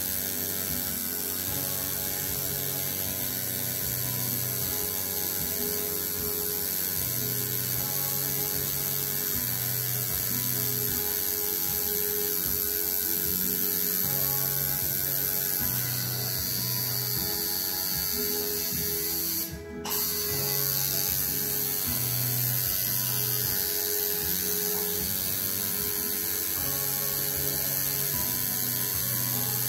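Coil tattoo machine, home-rebuilt and fitted with a single needle, buzzing steadily as it lines lettering into skin, with a brief click and dropout about two-thirds of the way through.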